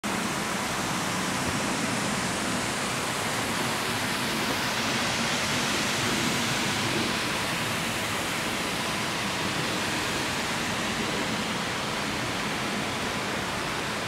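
Steady rushing roar of the Schleierfall, a tall waterfall in a rocky mountain gorge, an even wash of noise that doesn't change.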